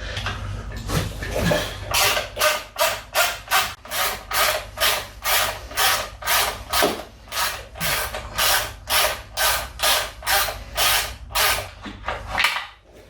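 Hand ratchet wrench worked back and forth in even strokes, about two and a half a second, undoing the fasteners of a motorcycle's primary chain tensioner.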